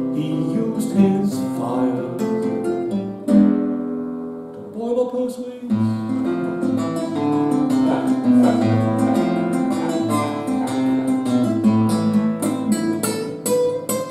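Classical guitar played solo, a run of picked notes and chords, dipping in loudness for a moment about four seconds in before the playing picks up again.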